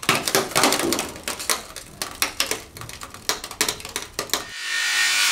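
A rapid, irregular run of sharp clicks and clacks, then a rising swell near the end leading into music.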